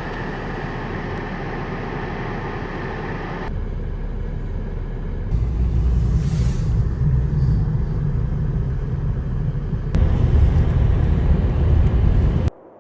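A van running, heard from inside the cabin: a steady hiss at first, then a heavier low rumble from about five seconds in that gets louder near the end, before cutting off abruptly.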